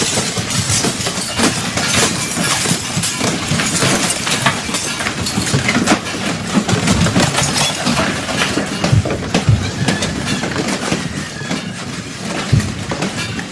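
An office building shaking in a strong earthquake: a continuous rattling rumble full of knocks and clatter, with a few heavier thumps in the middle.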